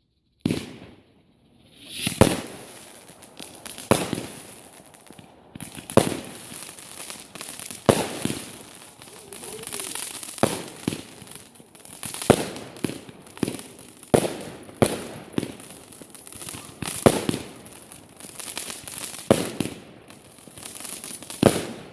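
Fireworks going off: a string of sharp bangs every second or two over continuous high-pitched crackling.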